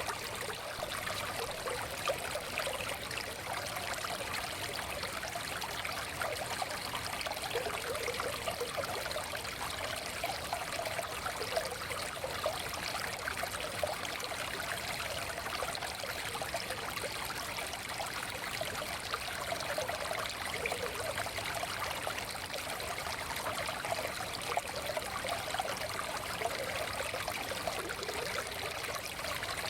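Forest stream flowing, a steady trickle and burble of running water.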